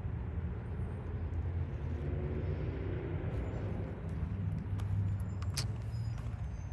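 Steady low outdoor rumble, with faint engine-like hum rising and fading in the middle and a few light clicks about five seconds in.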